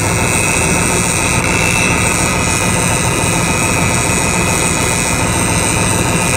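Airbus A320neo's twin turbofan engines idling after the jet has stopped at the gate: a steady jet whine with several high tones over a low rumble.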